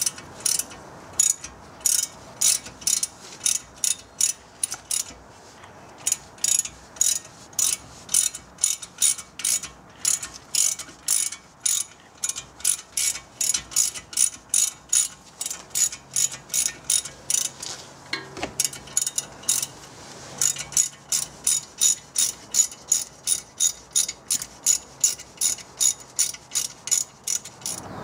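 Hand ratchet driving a 7 mm hex bit, clicking steadily at about three clicks a second as it backs out a front brake caliper bolt, with a couple of short pauses.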